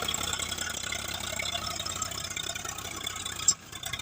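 Diesel engine of heavy machinery running steadily with some rattle. A brief sharp sound comes about three and a half seconds in, after which the engine noise drops away.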